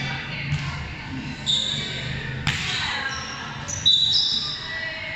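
A volleyball being hit and bouncing on a hard court floor in a large echoing sports hall: four sharp hits about a second apart, the loudest near the end, with short high squeaks after two of them.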